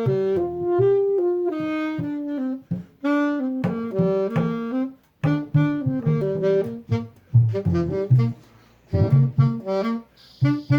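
Instrumental break of a jazzy song: a saxophone playing a melodic solo in short phrases over bass.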